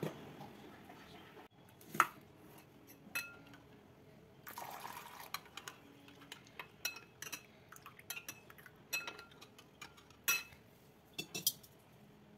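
Steel spoon stirring thin curd in a ceramic bowl, clinking irregularly against the bowl with short ringing chinks, with a brief soft stirring swish a few seconds in.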